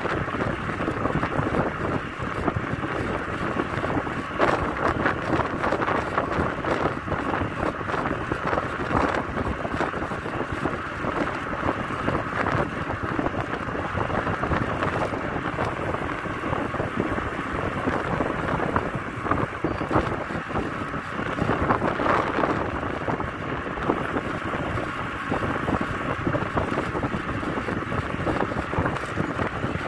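Wind rushing over the microphone of a camera riding on a moving bicycle, a steady noise with small gusts.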